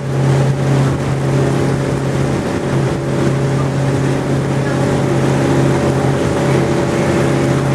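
A passenger boat's engine running at a steady cruise: a low, even hum that dips briefly about two and a half seconds in, over the rush of water and wind.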